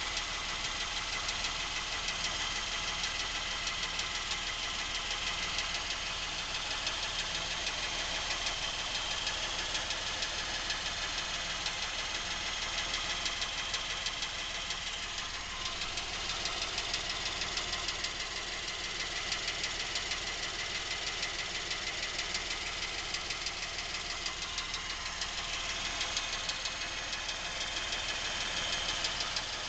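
Lincoln MKX's Ford 3.7-litre V6 running at a steady idle with a rapid, even knocking that the owner places at the back of the engine, away from the cam phasers and chains. The owner says the knock has been there since new and is getting worse; the dealer calls it normal.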